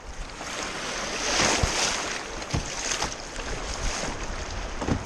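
Moving river water hissing and splashing around a canoe, swelling about a second and a half in, with wind buffeting the microphone.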